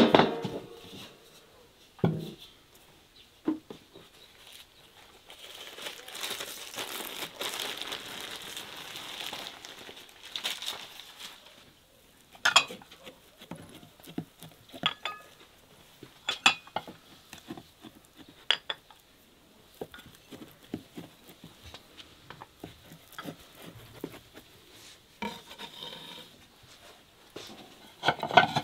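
Kitchen handling sounds: a metal baking pan knocked as it is handled, a few seconds of rustling and scraping, then a knife cutting a round baked cake, its blade tapping the wooden board several times with sharp clicks.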